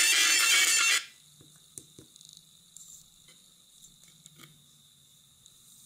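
Music from a mobile phone played loud through a small oval loudspeaker driven by a one-transistor amplifier, cutting off suddenly about a second in when the battery is disconnected. After that there is only a faint low hum with a few small clicks.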